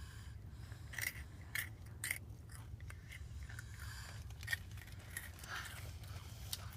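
Chewing: irregular crunching bites about every half second to a second, over a steady low hum.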